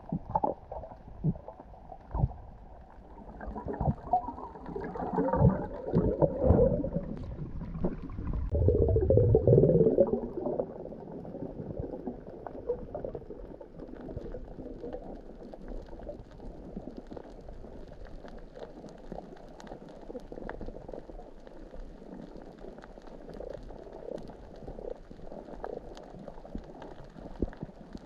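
Muffled underwater sound, with a loud burst of bubbling and gurgling about four to ten seconds in, then a steady low wash of water with faint clicks.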